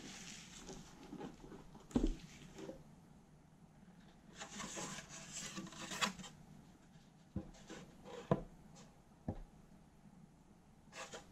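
Wooden case of a 1974 Wharfedale XP cassette deck being lifted off its metal chassis and handled: wood rubbing and sliding, with a sharp knock about two seconds in and several light knocks in the second half.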